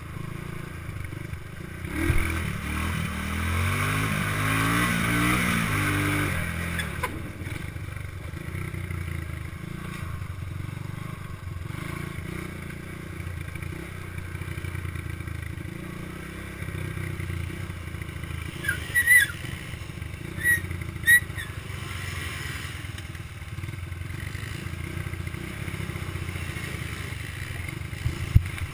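ATV engine running under way on a rough gravel road, heard from a camera mounted on the machine, with rattle from the surface. From about two seconds in it grows louder for about five seconds, several engine notes rising and falling against each other as other ATVs and a dirt bike run close by. Three short high squeaks come about two-thirds of the way through.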